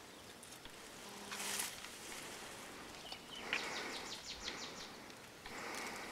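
Faint mountain-forest ambience, with a short rapid ticking call, about seven ticks a second for about a second, starting a little past the middle.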